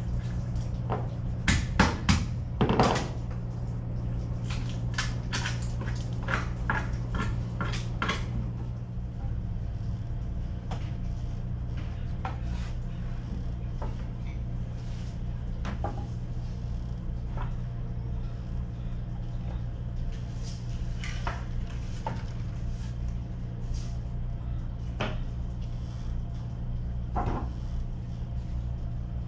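Wooden strips knocking and clattering as they are handled and set around a deck hatch opening: a quick run of knocks in the first eight seconds, then a few single ones, over a steady low hum.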